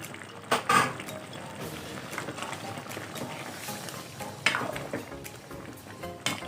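Carrot pieces tipped into a pot of simmering chicken stew in tomato sauce, with a few sharp clatters against the pot and utensil, over the low bubble of the stew.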